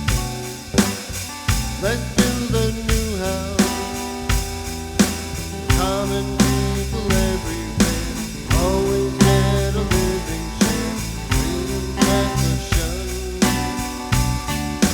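A live band playing a song: guitars strumming in a steady rhythm over a bass line, with a lead melody of bending, sliding notes through the middle.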